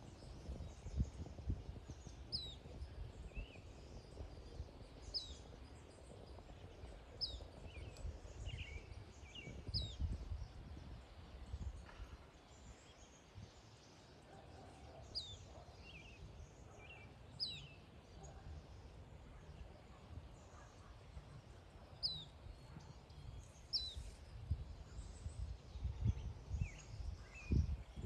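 Black phoebe giving sharp, high call notes that each drop quickly in pitch, repeated every two or three seconds, with a few fainter lower notes between. Under them is a gusty low rumble with occasional thumps on the microphone, which make the loudest moments.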